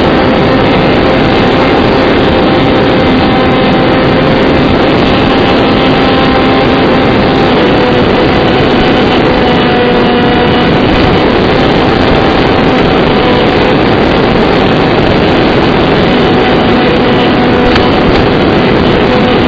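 Small RC flying wing's electric motor and propeller running steadily in flight, a hum whose pitch shifts slightly now and then with throttle, under heavy wind rushing over the microphone.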